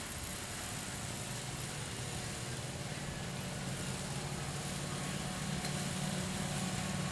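Ride-on miniature diesel-outline locomotive running along the track with passenger cars, a steady low drone that grows gradually louder as it comes closer.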